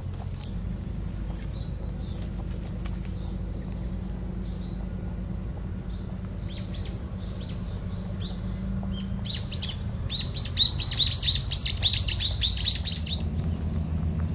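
Small birds chirping: scattered short calls, then a fast run of falling chirps, about four a second, for some three seconds near the end. A steady low rumble lies underneath.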